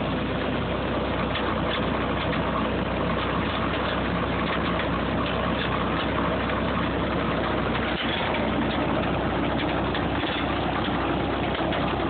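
Allis-Chalmers Roto Baler running as it picks up hay and rolls a bale, a steady mechanical din over an engine running evenly.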